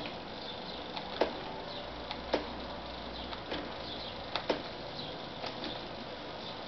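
Computer keyboard keys being pressed one at a time: about six sharp, irregularly spaced key clicks, the loudest a little over a second in, past two seconds and past four seconds.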